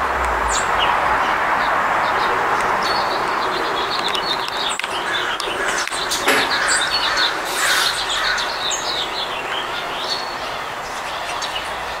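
Small songbirds chirping: many short, high call notes, busiest from about three seconds in to near the end, over steady background noise.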